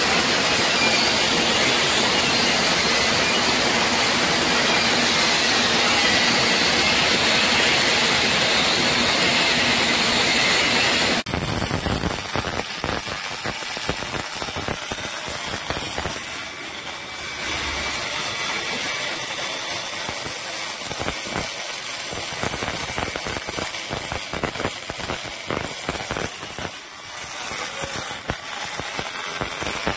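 MIG welding arc: a loud, steady hiss, then after about eleven seconds a different weld with a rougher crackle of rapid small pops as the wire feeds into the puddle.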